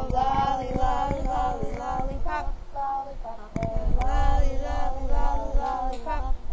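A high voice singing a melody in held, gliding notes, with a low rumble underneath.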